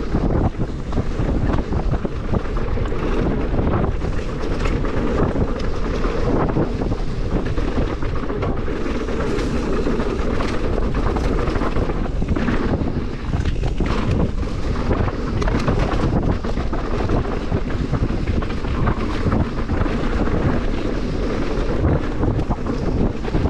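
Wind buffeting the microphone of a mountain bike descending a dirt forest trail at speed, with the tyres rumbling over the ground and frequent knocks and rattles from the bike over bumps.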